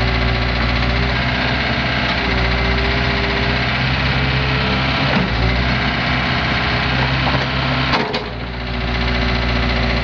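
Case 590 Super M backhoe's four-cylinder turbo diesel engine running steadily, with a knock about five seconds in and another about eight seconds in, followed by a brief dip in the engine sound.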